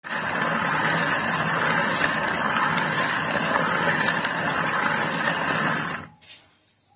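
Hand-turned stone quern (jaat) grinding black gram: a steady rough grinding of stone on stone as the upper millstone is spun by its wooden handle, stopping abruptly about six seconds in.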